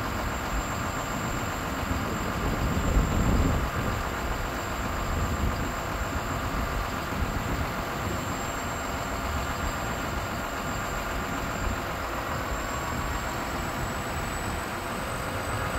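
Iveco Stralis truck's diesel engine running steadily at idle while the loader crane is worked, with a thin steady high whine throughout. About three seconds in there is a brief louder swell in the low rumble.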